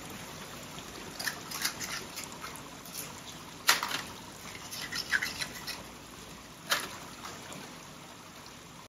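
Scallops being shucked with a knife: the blade scrapes inside the shell and the shells click, a series of short, sharp scrapes with the clearest one a little under four seconds in.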